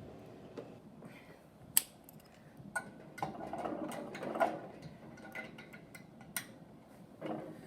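Iron weight plates on a steel loading pin clinking now and then: a few sharp metallic clicks, the loudest about two seconds in and another about six seconds in, with softer knocks between.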